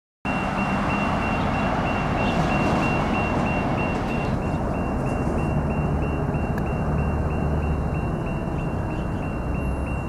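Tram level-crossing warning signal sounding a high beep about twice a second, evenly and without pause, over steady road-traffic noise.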